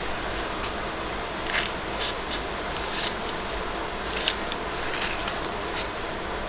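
Steady background hiss with scattered light clicks and paper rustles, the sharpest about four seconds in, as a page of a spiral-bound album is turned.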